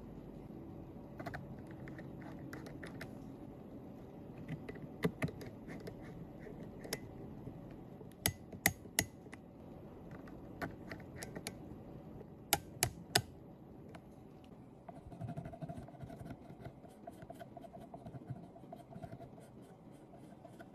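Small, sharp metal clicks and taps from tweezers and a precision screwdriver working a phone's steel connector shield and its tiny screws, in three quick clusters of two or three clicks each. Later a run of faint, rapid ticks and light scratching follows.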